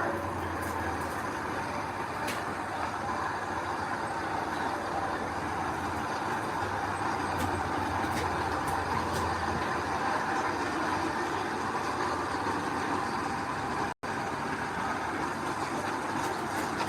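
Heavy diesel earth-moving machinery running steadily, with a low engine hum under the noise for the first ten seconds or so and a brief cut-out about two-thirds of the way through.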